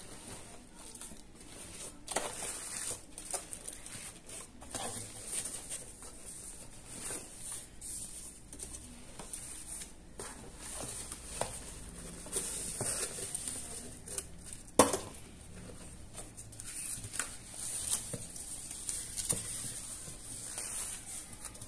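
Plastic wrapping and bags crinkling and rustling, with cardboard scraping and light knocks of plastic parts, as the pieces of a hand blender are handled and unpacked from their box. One sharp knock about 15 seconds in is the loudest sound.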